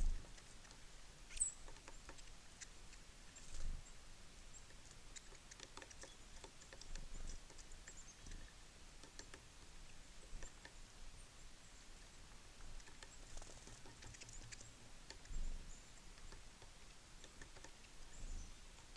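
Small birds at a seed feeder: scattered light taps and clicks of pecking and landing, a few soft thumps, and occasional brief high chirps.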